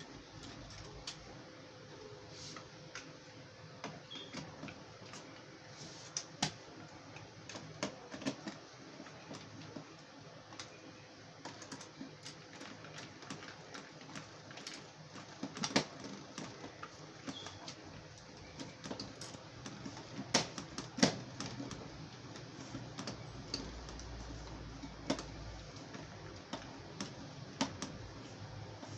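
Scattered, irregular clicks and taps of small parts and hand tools being handled while a CNC laser engraver is assembled, a few of them sharper knocks, over a faint steady hum.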